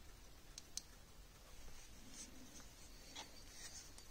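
Near silence with faint handling noise: a few light clicks and rubbing as hands turn a Glock 35 pistol with a mounted weapon light.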